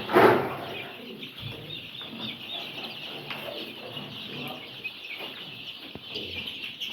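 A flock of young layer chicks cheeping continuously, many high chirps overlapping as they crowd the drinkers. A short, louder noise comes right at the start.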